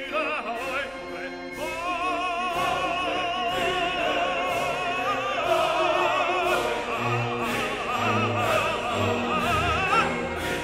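Background music: a classical-style piece with an operatic voice singing with wide vibrato over orchestra, with a steady beat.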